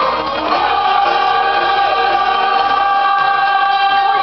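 Music with singing: one long sung note held from about half a second in, over a steady backing.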